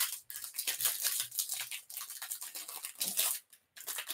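Clear plastic wrapper on a pack of trading cards crinkling and tearing as it is peeled open by hand: a rapid, uneven run of sharp crackles with a brief pause near the end.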